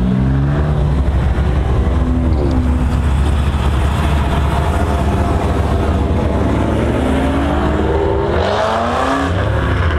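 Car engines: a steady low engine drone, with a short rev up and back down about two seconds in and a longer rev whose pitch climbs steadily over the last few seconds.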